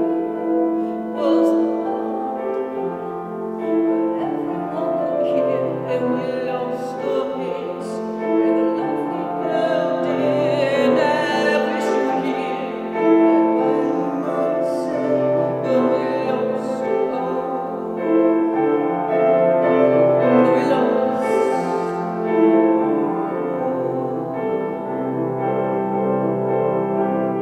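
A woman singing long held notes with vibrato while accompanying herself on piano.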